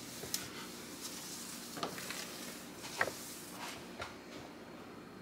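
A spoon stirring a drink in a mug, with a few light clinks against the side.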